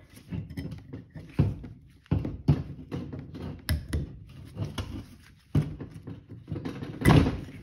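New brake pad being slid into and worked back and forth in a cleaned Lexus RX450h front caliper bracket with its slider inserts: irregular metal scraping and clicking, with a louder clack near the end, as the pad's fit in the bracket is tested.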